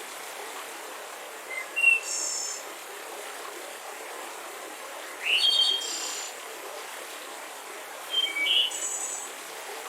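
Forest birds calling in three short bursts of chirps and whistles, about three seconds apart, over a steady background hiss of woodland ambience.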